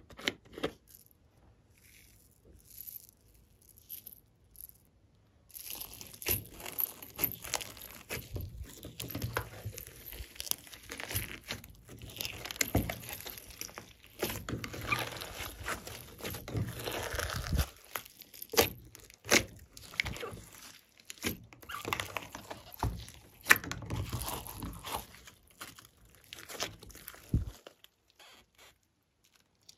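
Hands kneading, squashing and stretching glossy slime mixed with foam beads and glitter, a dense run of small sticky clicks and squelches. For the first five seconds or so it is much quieter, with only a few faint clicks as slime is squeezed out of a plastic bottle.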